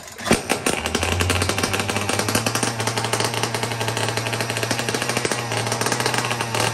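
Small two-stroke engine of a Bolens string trimmer catching within the first second and then running steadily on choke with a rapid, harsh crackle, its exhaust muffler not fitted.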